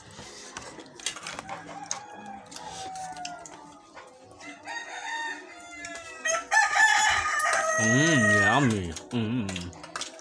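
A rooster crowing: one loud call starting about six and a half seconds in, held for about two seconds and dropping in pitch at its end. Fainter calls come before it.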